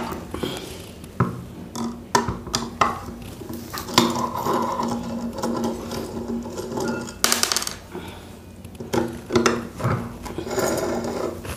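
Metal screwdriver clicking and scraping against the metal end cover of an 18-inch cooler motor as its screws are worked loose, with occasional knocks of the motor body on a wooden table. A louder rasping scrape comes about seven seconds in.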